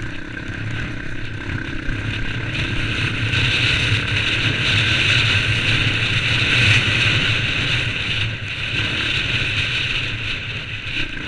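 Off-road vehicle engine running steadily, growing louder for a few seconds in the middle and then easing off.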